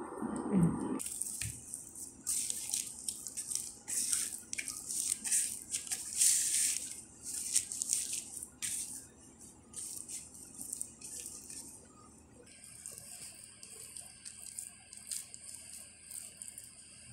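Pizza dough being worked by hand in a plastic bowl: irregular sticky, wet squelching and tearing sounds as the dough pulls off the hands and bowl, stopping about twelve seconds in and giving way to fainter rubbing.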